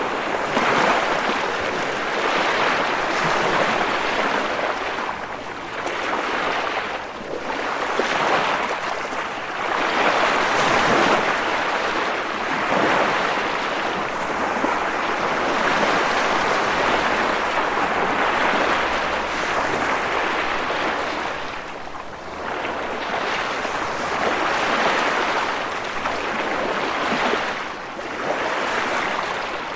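Continuous rushing water, surging and easing every few seconds.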